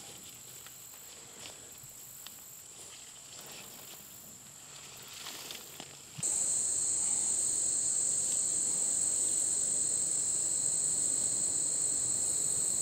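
Steady high-pitched buzz of an insect chorus in late-summer vegetation, with faint rustling. About six seconds in it jumps abruptly much louder, and a second, lower buzz joins it.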